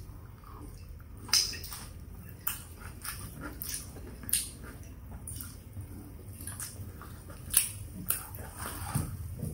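Close-miked chewing and wet mouth smacks of someone eating kimchi and rice by hand, with sharp lip-smack clicks scattered throughout, the loudest a little over a second in and again about three-quarters of the way through.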